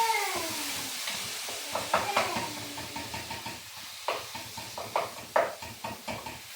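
A pot of beef and tomatoes sizzling steadily while it is stirred with a spoon. The spoon knocks and clinks against the pot several times in the second half, and a short gliding tone comes near the start.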